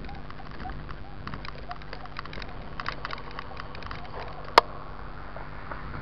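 Mountain bike rattling over a rough trail, with irregular clicks and knocks, then one sharp, loud knock about four and a half seconds in.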